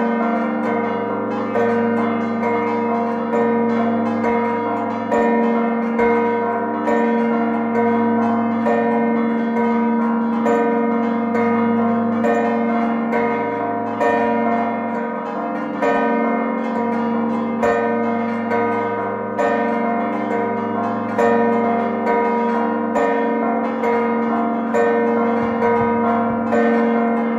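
Peal of six church bells ringing together, their strokes coming again and again in a steady repeating cycle over a layered, lingering hum. This is the festive closing peal (mota ta' l-għeluq) that marks the end of a Maltese village feast.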